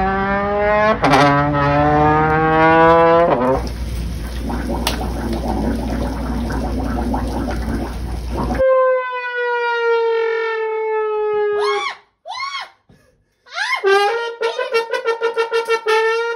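Comedic brass-horn sound effects: a few sliding, falling wah-wah notes, then about five seconds of noisy rumble. A long note droops in pitch, a couple of short blips follow, and near the end comes a fast warbling note.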